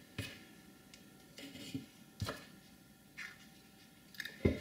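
Tools and a circuit board handled on a workbench: three short knocks about two seconds apart, the last the loudest, with soft scrapes and rustles between.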